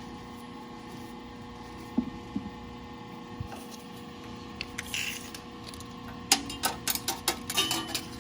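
Steady electrical hum, with a couple of light knocks and then, near the end, a quick run of sharp metallic clicks and rattles from parts of the table saw being handled at the blade.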